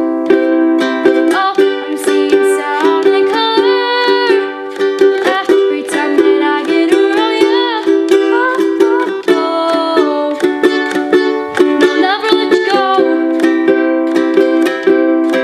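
Acoustic ukulele strummed steadily in chords, with a girl's singing voice carrying a melody over it from about a second in until near the end.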